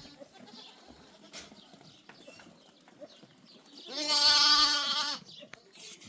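A goat bleating once, about four seconds in: a loud, wavering call a little over a second long.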